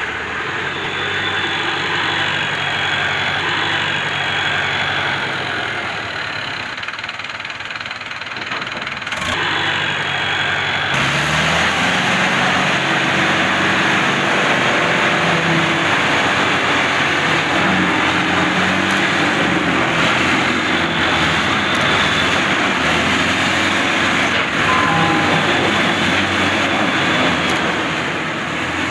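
Diesel engines of a mud-stuck dump truck and a Landini Atlantis DT85 four-wheel-drive tractor running under load as the tractor tows the truck out. The sound grows louder and rougher about eleven seconds in.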